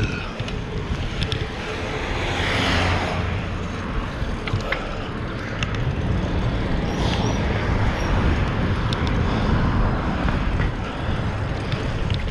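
Wind buffeting the microphone of a camera riding on a moving fixed-gear bike, with steady road and tyre rumble underneath.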